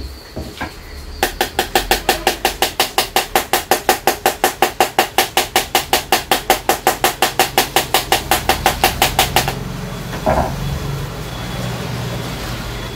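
A screwdriver taps rapidly and evenly on a plastic Brother B021 toner cartridge, about four taps a second for some eight seconds, then stops suddenly. The tapping knocks the toner powder down inside the cartridge to make room for more.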